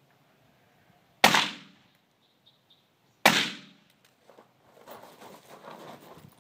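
Two rifle shots from an AR-style carbine, about two seconds apart, each with a short echo. Then footsteps crunching on gravel as the shooter moves to a new position.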